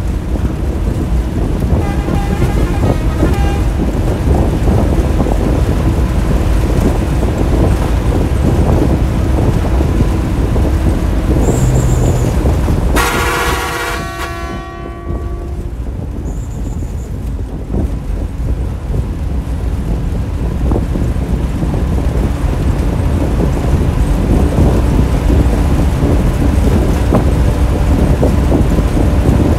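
Bus engine and road noise heard from inside the driver's cab, running steadily. About 13 seconds in the horn sounds loudly for about a second, with a fainter, shorter horn sound near the start.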